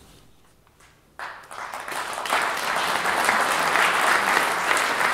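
Audience applauding: a short hush, then clapping starts about a second in, swells quickly and holds steady.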